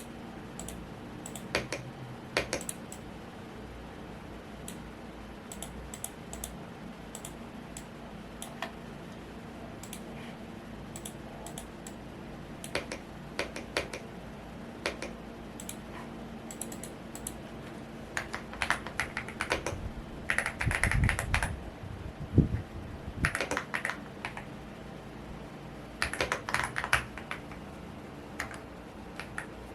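Typing on a Womier S-K71 mechanical keyboard: scattered single keystrokes, then several quick runs of typing in the second half, over a steady fan hum.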